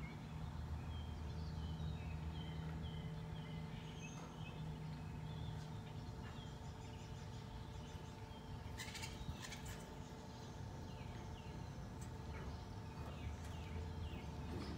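Small birds chirping in short series over a steady low hum, with a few sharp clicks about two-thirds of the way through.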